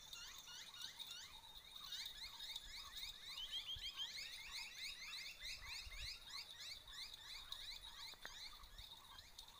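Quiet chorus of many small birds chirping, a dense run of short rising calls several a second, growing busier about two seconds in.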